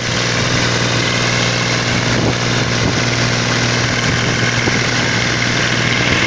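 Farm tractor engine running steadily while the tractor drives along a road, heard from on board as a constant low drone.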